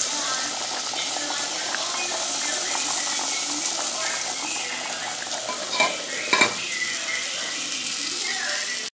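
Food sizzling steadily in a pot on an electric stovetop, with two sharp clinks of a pot lid against the pot about six seconds in.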